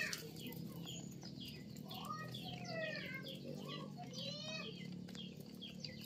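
Birds chirping and calling over and over in short, high, falling notes, with a few lower calls mixed in, over a steady low hum.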